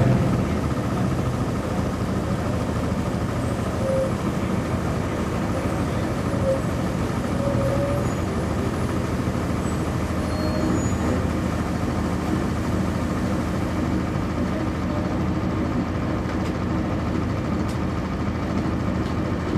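Cummins ISC inline-six diesel engine of a 1999 NovaBus RTS transit bus running steadily, heard from inside the bus, with a few faint short squeaks partway through.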